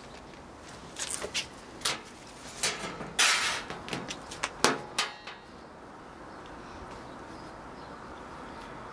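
Knocks and clatter of things being handled and set down on a thin galvanised steel sheet, with a short metallic rattle about three seconds in and a sharp knock near five seconds; then a steady low background.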